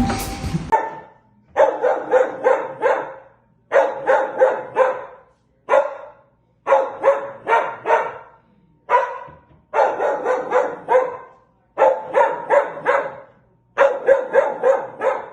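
A dog barking in quick runs of four to six barks, with short pauses between the runs.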